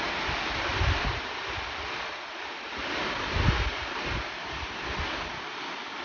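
Steady rush of a waterfall pouring into its pool, with gusts of wind buffeting the microphone about a second in and again around three and a half seconds in.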